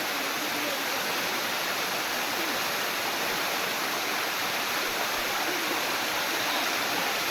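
Waterfall water rushing and splashing in a steady, unbroken roar. Faint voices are just audible under it.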